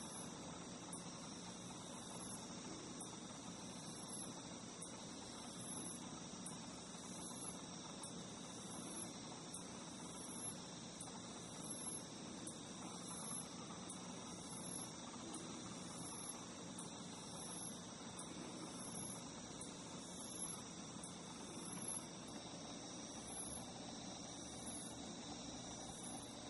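Crickets singing: steady high trills, with a higher pulsed call repeating about once a second.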